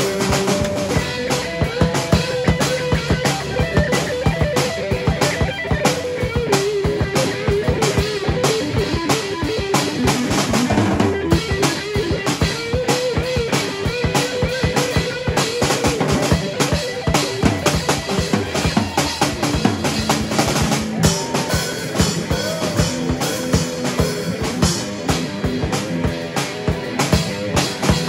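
Live rock jam on a drum kit and an electric guitar played through a Marshall amp. Busy drumming with bass drum, snare and rimshots runs under a lead guitar line of wavering, bending notes.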